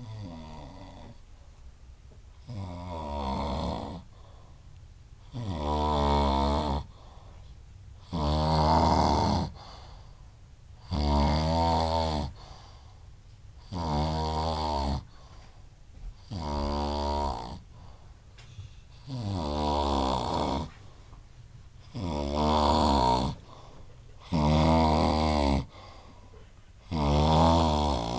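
Loud snoring: a long buzzing snore about every two and a half to three seconds, each lasting a little over a second.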